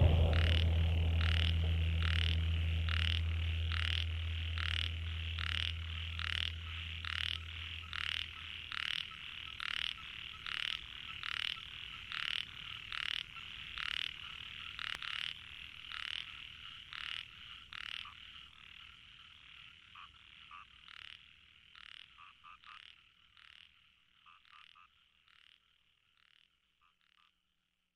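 Frog calling in a steady rhythm, about one croak every three-quarters of a second over a continuous high ringing chorus. A low drone fades out under it in the first several seconds, and the calls slowly fade away to silence near the end.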